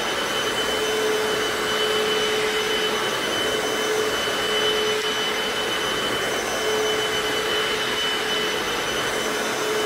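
Hoover FloorMate wet hard-floor cleaner running as it is pushed over a wood floor, its suction motor drawing the wash water back up. It makes a steady rushing noise with a high motor whine.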